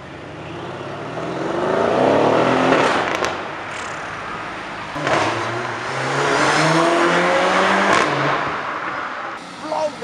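Mercedes-AMG cars accelerating hard, one after another, the engine note climbing through the revs each time. A few sharp exhaust pops at about three, five and eight seconds in.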